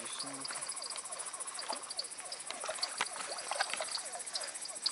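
Chorus of frogs at a pond after dark: many short, falling calls in quick succession over a steady high insect trill, with a few sharp clicks.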